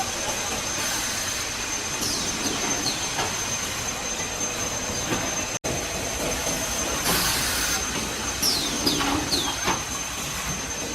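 Factory machinery running with a constant noise and a steady high-pitched whine. Several short falling squeaks come through, and there is a brief hiss about seven seconds in. The sound cuts out for an instant a little past the middle.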